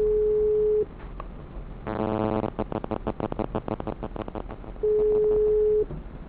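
A steady electronic beep lasting about a second, then a short buzzing tone about two seconds in followed by a rapid run of clicking pulses, then a second identical one-second beep near the end.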